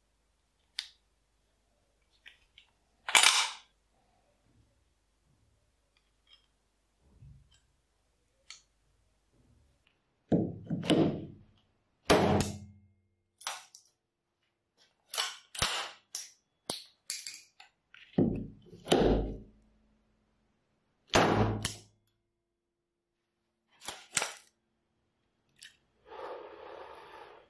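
Restored Cod cartridge-fired nail gun being fired several times, each shot a sharp bang that drives a nail into a board, with smaller clicks and clacks of the gun being handled between shots.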